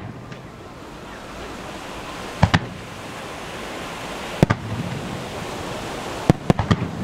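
Aerial firework shells bursting with sharp bangs over a steady background hiss: a double bang about two and a half seconds in, another about two seconds later, and a quick run of several near the end.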